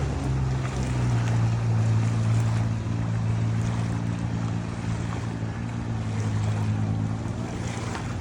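Motorboat engine running at a steady pitch, with water and wind noise around it.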